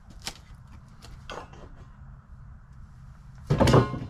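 A few light knocks and shuffling steps, then a loud clatter about three and a half seconds in as a long bar is set against the log stand.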